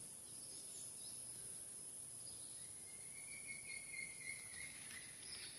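Faint rainforest insect drone, steady and high-pitched, with a thin drawn-out whistle for about two seconds near the middle.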